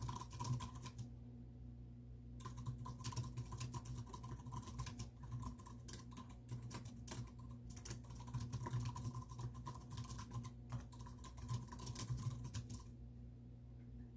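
Typing on a computer keyboard: a short burst of keystrokes, a pause of about a second, then fast continuous typing that stops shortly before the end.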